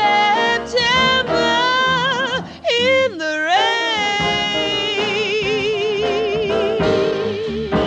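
Female jazz singer singing the closing phrase of a jazz standard over upright bass: melismatic runs, a deep downward swoop about three seconds in, then one long held note with a wide, slow vibrato to near the end.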